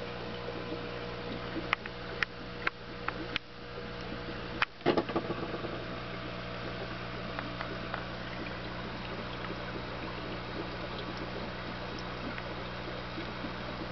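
Aquarium pump humming steadily, with water bubbling in the tank. A few sharp clicks come about two to three seconds in, then a louder knock about five seconds in.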